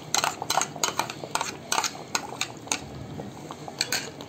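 A metal spoon clinking and scraping against a metal cooking pot and a cream packet as cream is scraped into a curry, in quick irregular taps, a few a second, thinning out near the end.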